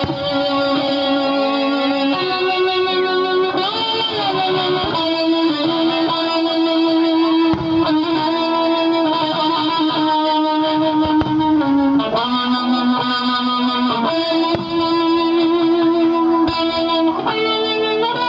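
Music led by an electric guitar: long held notes that change every second or two, some bending in pitch.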